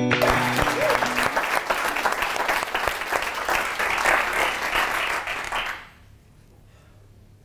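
Audience applauding, dying away quickly about six seconds in.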